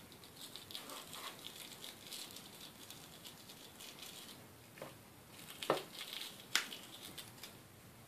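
Faint handling noise of a shielded cable being worked through a metal connector's grommet and clamp by hand: soft rustling and small clicks, with a few sharper clicks of metal parts about five to seven seconds in.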